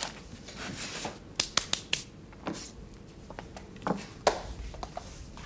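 Footsteps and handling noise on a hard floor: irregular sharp clicks and light knocks, a quick cluster about a second and a half in and two more around four seconds.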